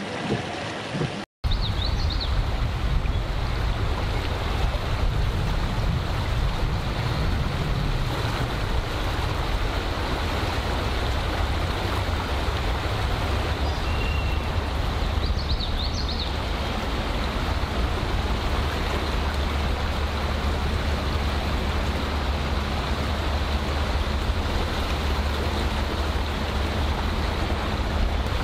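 Steady rushing of floodwater with a heavy low rumble, after a brief cut-out about a second in. A few faint high chirps come now and then.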